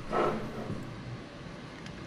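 Steady low background noise of a workshop, with one brief sound just after the start.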